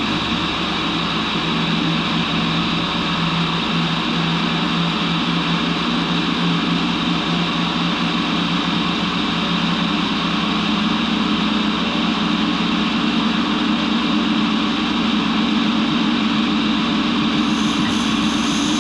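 Monarch 10EE lathe running steadily just after start-up, a constant electric-drive hum with an even mechanical whir.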